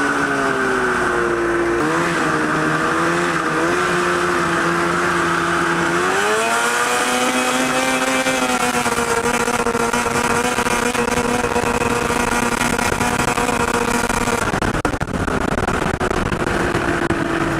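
Two-stroke snowmobile engine in a go-kart running under way at a steady pitch. About six seconds in it revs up to a higher pitch and holds there as the kart accelerates, then backs off and falls in pitch a few seconds before the end.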